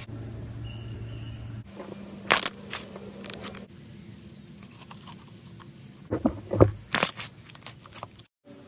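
Slime being squeezed and pressed by hand, giving crisp crackling, crunchy pops, with a cluster of the loudest ones about six to seven seconds in.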